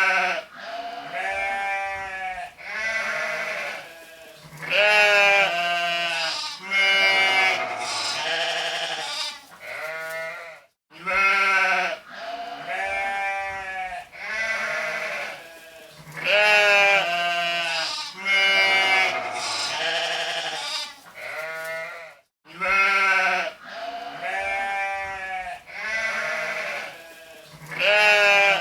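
Sheep bleating, one quavering call after another. The same run of bleats repeats about every eleven and a half seconds, each time after a brief gap.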